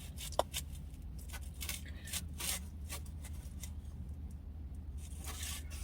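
A knife sawing through barbecue ribs and scraping through the styrofoam takeout container beneath them: a run of irregular short scrapes and squeaks.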